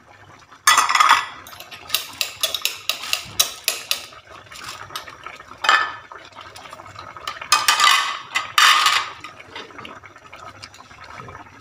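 Metal kitchenware being handled: pots, pans and utensils clattering and clinking in several bursts, loudest about a second in and again from about seven and a half to nine seconds, with a run of quicker clinks in between.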